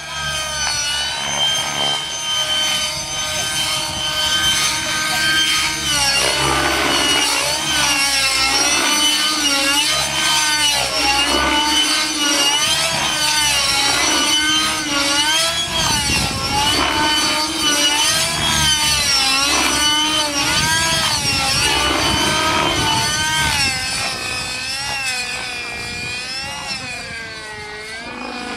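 Radio-controlled model helicopter flying aerobatics: a steady high whine at first, then from about six seconds in its engine and rotor pitch rise and fall quickly, over and over, as it flips and rolls, easing a little near the end as it climbs away.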